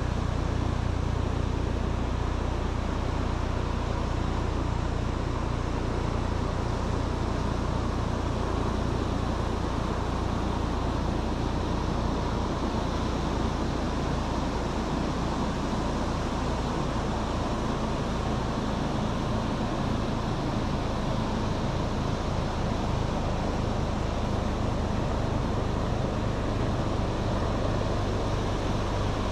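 Wind blowing over the microphone on an open beach with surf behind it: a steady noise with a strong low rumble.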